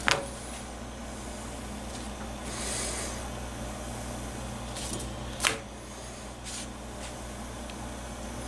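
Gas stove burner running with a steady hiss and low hum while a flour tortilla warms directly on its grate. Two sharp taps, one right at the start and one about five and a half seconds in, as the tortilla is laid on the grate and flipped.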